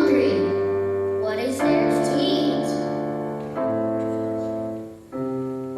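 Keyboard playing held chords that change about every one and a half to two seconds, with a voice briefly over it about a second and a half in. The sound dips just before the last chord change.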